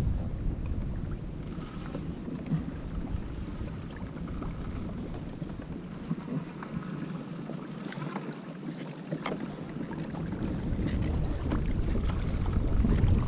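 Water sloshing against a plastic kayak hull, with wind rumbling on the microphone and scattered small clicks and knocks.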